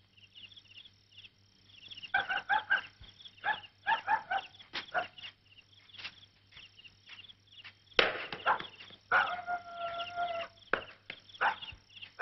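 Animal calls: a steady run of short high chirps throughout, a series of louder pitched calls about two to five seconds in, and one long drawn-out call about nine seconds in, over a faint steady low hum.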